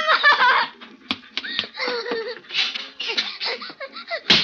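A person laughing and giggling in high-pitched, broken peals, with a sharp louder sound near the end.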